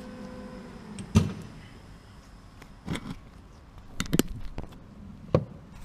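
Several short, sharp knocks and clicks, the loudest about a second in, as a new CV joint is worked onto the car's driveshaft to seat its locking clip.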